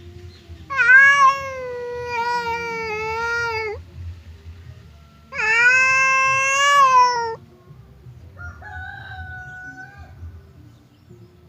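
Cats in a standoff yowling at each other: two long, drawn-out wails, then a fainter, shorter call. It is the threatening caterwaul that comes before a fight.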